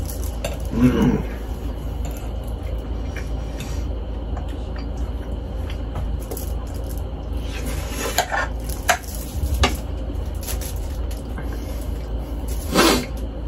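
Metal fork clinking and scraping against a plate as spaghetti is twirled and eaten, with a steady low hum underneath.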